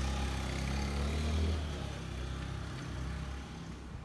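Dump truck's diesel engine idling: a steady low hum, strongest for the first second and a half, then weaker and fading near the end.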